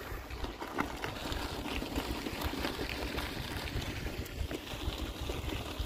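Wind buffeting the microphone on a moving bicycle, a steady low rumble with a hissing rush over it and a few faint ticks.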